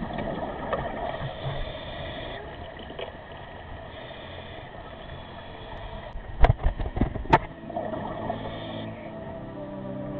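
Muffled underwater sound picked up by a diver's camera inside a wreck: a steady low rush and rumble, with a few sharp knocks or clacks about six to seven seconds in. Steady tones come in near the end.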